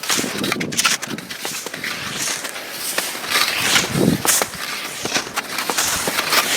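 Cross-country skis swishing and crunching over snow in repeated strides, with scattered sharp clicks.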